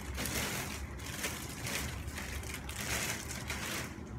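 Clear plastic wrapping crinkling and rustling in uneven bursts as it is handled and pulled off a shelf of a metal-mesh shoe rack.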